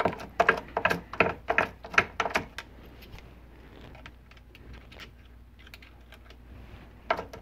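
Light metal clicks and taps from hands setting up a workpiece in a milling-machine vise: a quick run of about ten in the first two and a half seconds, then a pair near the end.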